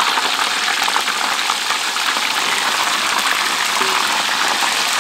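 Tofu deep-frying in hot oil: a steady, loud sizzle with fine crackling.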